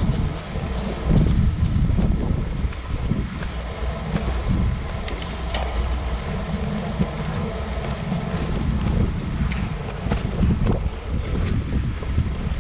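Wind buffeting a bicycle-mounted action camera's microphone as the bike rolls along, a steady low rumble with road noise and a few light clicks.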